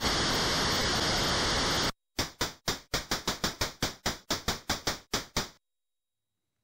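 A steady hiss of static that cuts off about two seconds in. A quick run of about sixteen sharp clicks follows, around five a second, one for each binary digit printed on a retro computer screen.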